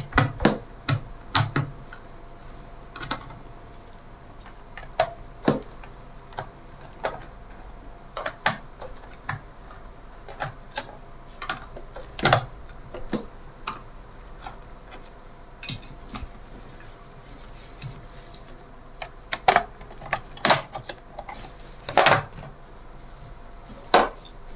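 Irregular sharp clicks and taps of small tools and hard plastic on a laptop's case, the sound of a laptop being opened up for repair.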